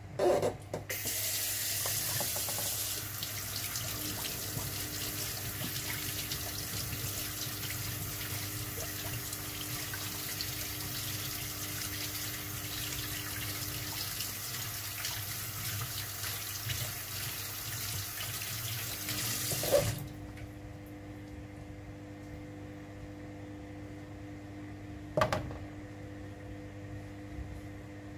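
Kitchen mixer tap running into a stainless steel sink while hands rinse under the stream. About two-thirds through the tap is shut off with a clunk, leaving a steady low hum, and a single knock follows a few seconds later.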